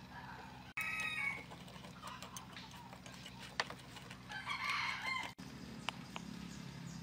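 Chopsticks clicking against a small ceramic dipping bowl as seasoning is stirred in. A bird calls twice, about a second in and again past the middle, with a longer, louder call the second time.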